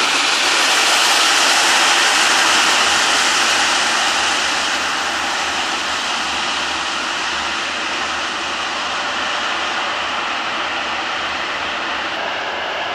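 Freight train of tank wagons rolling past close by: a steady, loud rushing of wheels on rail, easing slightly after about four seconds as the last wagons go by.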